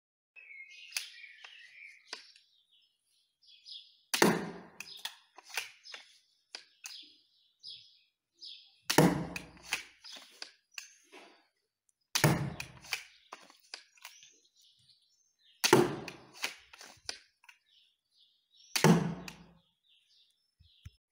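Homemade wooden sliding Legolini, a repeating slingshot crossbow, firing five bolts about three to four seconds apart; each shot is a sharp snap followed by a few lighter clicks. Birds chirp in the background, most clearly near the start.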